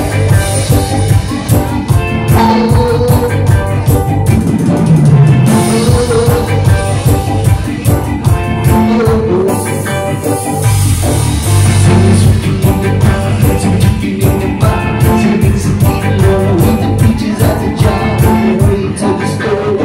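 Live band music through PA speakers: keyboard and bass over a steady drum beat, with a singer's voice at times.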